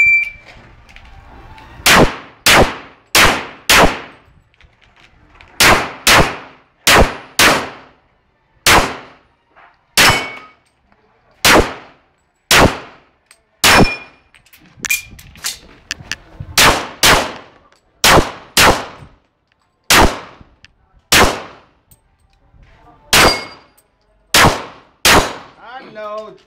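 A shot timer beeps once to start, then a pistol is fired about two dozen times, mostly in quick pairs about half a second apart with short pauses between groups: a timed practical-shooting course of fire.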